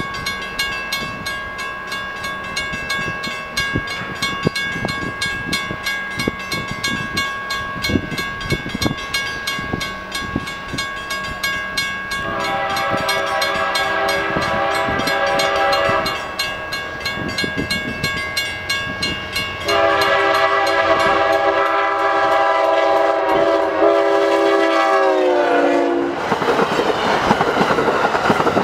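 Amtrak Vermonter passenger train with a GE Genesis P42DC locomotive approaching and passing. Its horn sounds a chord in two long blasts, the second dropping in pitch as the locomotive goes by, followed by the loud rush and clatter of the coaches rolling past.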